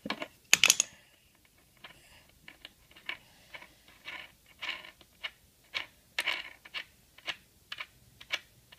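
A skate tool loosening the kingpin nut on a skateboard truck: irregular clicks and short scrapes as the tool turns on the nut, the loudest about half a second in.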